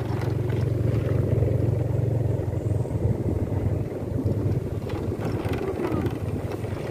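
Motorcycle engine running steadily while riding along a dirt road, with wind rush on the microphone.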